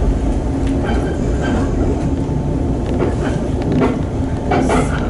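A Shinano Railway electric train running, heard from inside the carriage: a steady low rumble of wheels on the rails, with a short sharp noise near the end.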